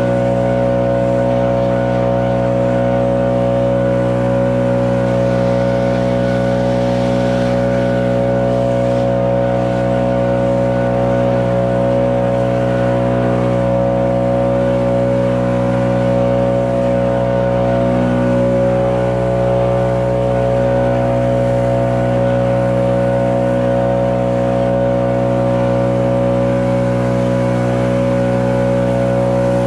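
Stihl BR 800 Magnum backpack blower's two-stroke engine running steadily with the rush of its air blast, blowing wet snow off a paved driveway.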